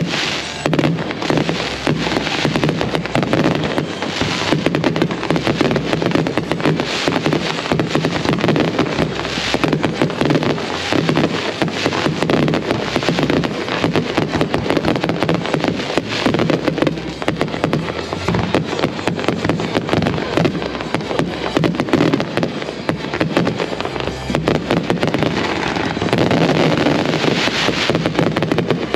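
Consumer fireworks finale: a dense, unbroken barrage of rapid bangs and crackling from many aerial shots at once, with music playing alongside.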